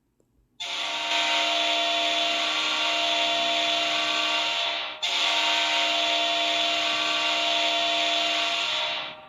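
Hockey goal horn sounding two long blasts of about four seconds each at a steady pitch, with a brief break between them.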